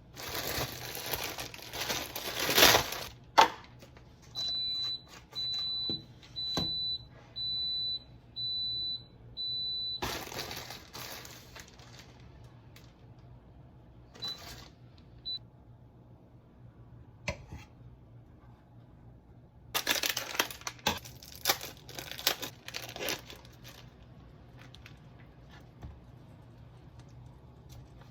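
Crinkling and rustling, then an electronic appliance beeping in a steady series of about seven high beeps, followed by more rustling, two short beeps and another burst of crinkling near the end.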